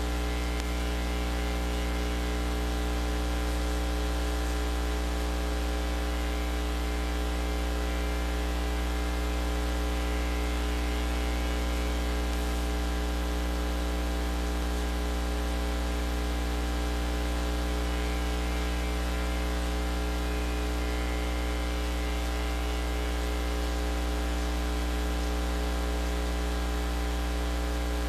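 Steady electrical mains hum with many overtones, under a constant hiss.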